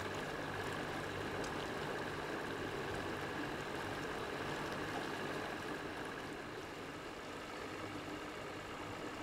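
Boat engine running steadily at low speed, a constant low hum over water noise, easing slightly quieter about six seconds in.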